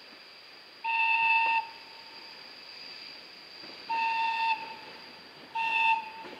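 Horn of ZSSK class 757 diesel locomotive 757.019, sounded three times from a train on its approach: a blast of nearly a second about a second in, a shorter one about three seconds later, and a brief one near the end, each one steady pitch.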